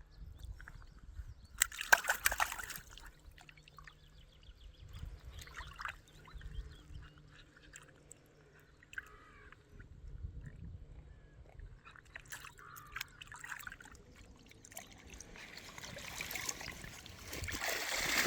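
Lake water sloshing and splashing by the bank in irregular bursts, with the loudest splash about two seconds in and a longer stretch of splashing near the end.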